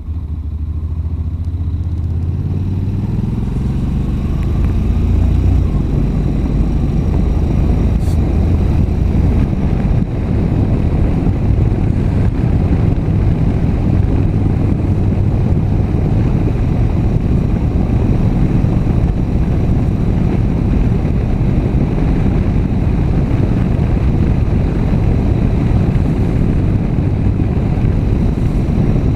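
Honda NC700X motorcycle's parallel-twin engine pulling harder over the first few seconds, its loudness climbing. It then runs at a steady drone under a constant rush of wind on the microphone.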